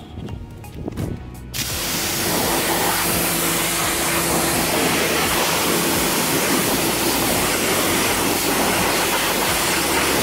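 Pressure washer spraying a fan jet of water onto a car tyre and wheel well to rinse off foam soap. The spray is a loud steady hiss that starts about a second and a half in, with a faint low hum under it.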